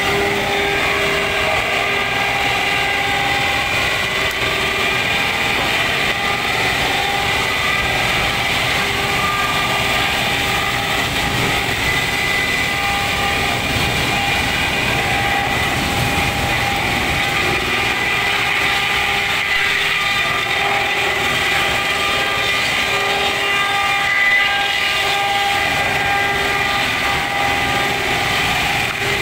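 Large sawdust machine driven by a 355 kW electric main motor, running steadily: a loud, even machine noise with several steady whining tones over it.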